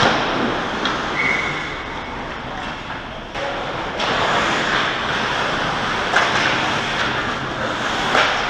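Ice hockey rink sound: a steady scraping hiss of skate blades on the ice, growing louder about halfway through as players skate toward the net. A few sharp knocks of sticks or the puck are mixed in, one near the end.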